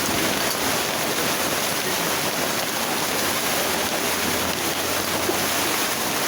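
Heavy downpour of rain with hail, a dense steady hiss.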